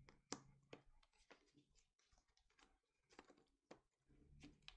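Near silence with a few faint, scattered clicks and taps of hard plastic parts being handled: an electric toothbrush handle and its charger.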